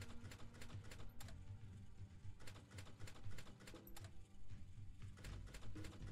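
Quick runs of about five sharp clicks, one run every couple of seconds, from the Book of Dead online slot game as its five reels stop one after another on each spin.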